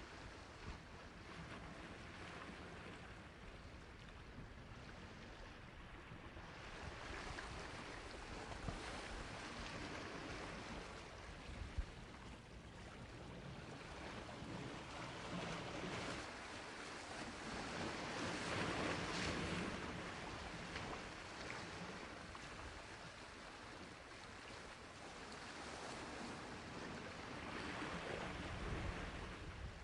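Sea waves washing onto a shore, a steady rush of surf that swells and ebbs slowly, cresting about two-thirds of the way through and again near the end.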